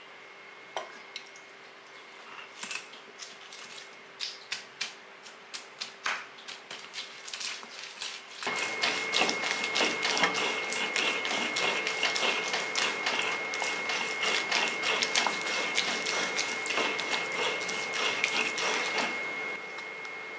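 Stone roller of an ammi grinding slab crushing roasted horse gram, chillies and shallots into a coarse paste: irregular clicking and knocking of stone on stone and grain. The strokes are sparse at first, then become denser and louder from about eight seconds in, over a faint steady high whine.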